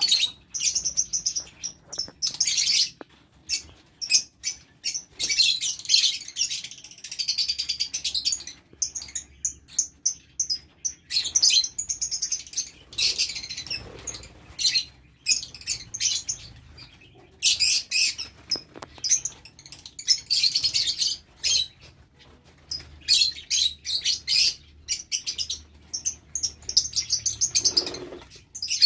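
A flock of lovebirds chirping shrilly, in repeated bursts of rapid high calls from many birds at once, with brief lulls between them.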